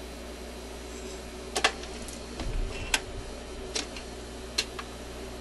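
Admiral suitcase record player running with a steady low hum. About five sharp mechanical clicks and one dull thump come as its tone arm and changer mechanism are worked by hand.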